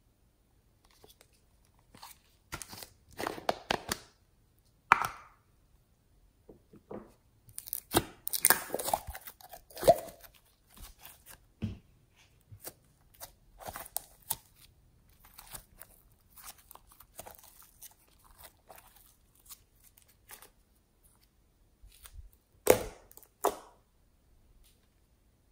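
Thick glitter slime being pulled out of a plastic container and handled into a glass dish: irregular sticky crackling and tearing sounds, with a few sharp clicks and pops.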